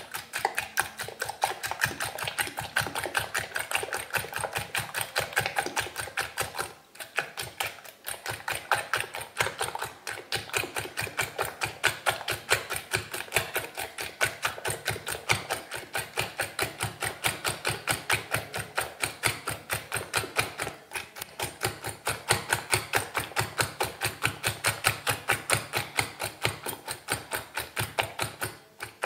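Eggs and sugar being beaten by hand in a glass bowl, a metal utensil clinking rapidly and evenly against the glass, with brief pauses about 7 and 21 seconds in. The mixture is being whisked until thick and pale.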